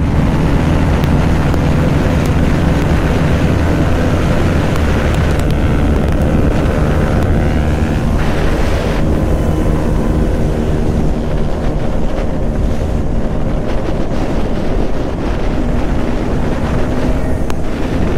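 Motorcycle engine running steadily while under way, with a steady hum that drifts slightly in pitch, under heavy wind rush on the microphone.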